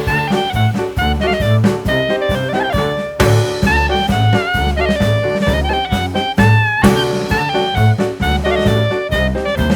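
Upbeat swing jazz with saxophone and brass over a steady walking bass and drum beat.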